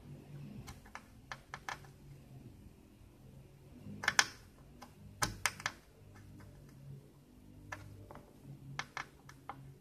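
Small sharp clicks and taps of metal tweezers and a soldering iron tip against a capacitor's leads and a circuit board, coming irregularly and loudest about 4 and 5 seconds in, while the capacitor is worked free of its heated solder joint. A faint low hum lies underneath.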